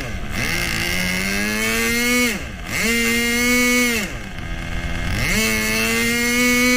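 Irvine 40 Mk II two-stroke glow engine running at high revs. It is throttled back twice and opened up again, its pitch dipping and climbing back each time.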